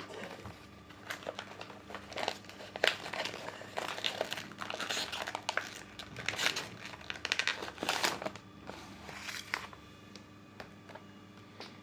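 Packaging crinkling and rustling in bursts as a gift is unwrapped by hand, with a few sharper crackles. It settles to quiet near the end.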